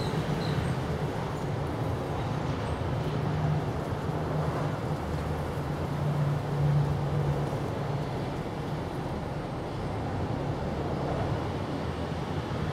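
Steady low rumble of distant motor traffic, swelling briefly about six to seven seconds in.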